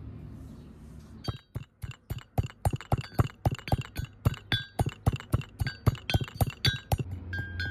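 Rhythmic clinking, about four strikes a second starting about a second in, each hit ringing briefly: a kitchen utensil striking a metal or glass vessel.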